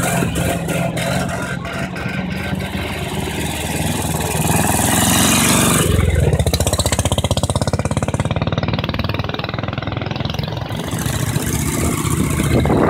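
Motorcycles, among them a sidecar outfit, riding through a shallow river ford, their engines running with water splashing around the wheels. About halfway through, one engine's beat grows louder and more pronounced as a bike comes close.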